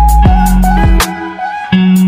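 Background music with a steady beat and a deep bass.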